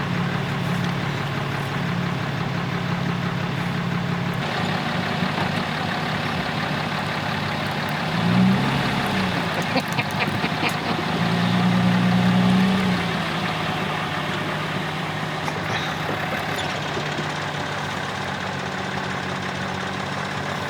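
Vehicle engine idling steadily, with a brief rise and fall in pitch about eight seconds in and a louder stretch a few seconds later. A few light clicks come near the middle.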